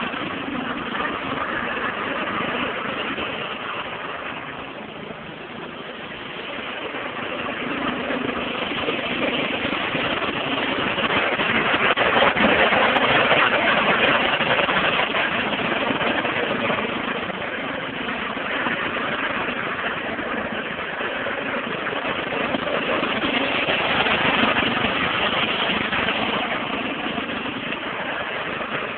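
Riding lawn mower engine running continuously as the mower is driven around. It fades a few seconds in, then swells louder near the middle and again near the end.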